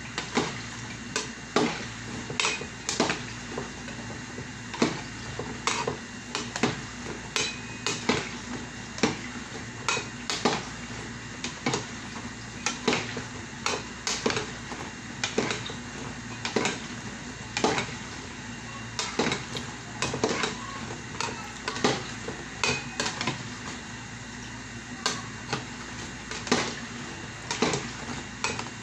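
A metal spatula stirring food in a pan, clinking and scraping against the pan at an irregular pace, about one or two knocks a second, over a steady low hum and faint sizzle.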